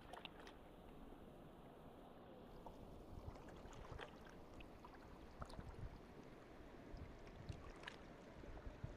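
Near silence: a faint low rumble with a few small, scattered clicks and taps.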